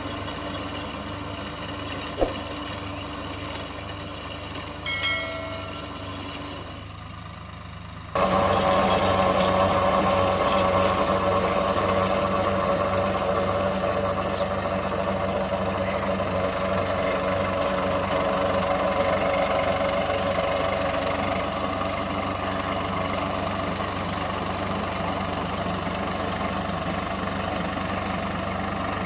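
Swaraj 744 FE tractor's three-cylinder diesel engine running steadily under load as it drives a rotavator through the soil. About eight seconds in the sound turns abruptly louder and stays steady.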